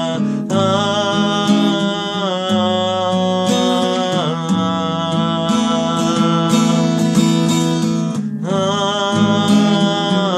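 Instrumental passage of a song: acoustic guitar playing, with a sustained melody line held over it.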